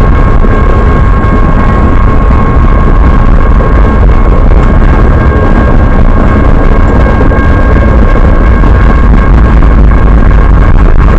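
Steady rolling rumble of a Triple Crown RoadRailer train's wheels on the rails as the trailers pass close by, with a steady high-pitched ringing tone over it.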